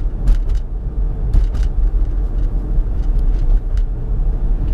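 Road and engine noise inside a moving car's cabin: a steady low rumble with a few faint, irregular ticks.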